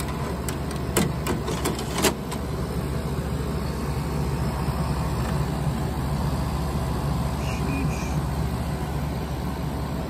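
IDYLIS 12,000 BTU portable air conditioner running, heard up close at the back: a steady hum from its rotary compressor under the steady rush of the blower. A few light knocks in the first two seconds.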